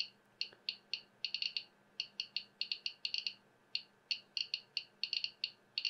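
Geiger counter kit's buzzer beeping once for each detected count: short, high beeps at an irregular, fast rate of several a second, sometimes in quick clusters. The raised rate comes from uranium-bearing Vaseline glass beads held close to the Geiger–Müller tube.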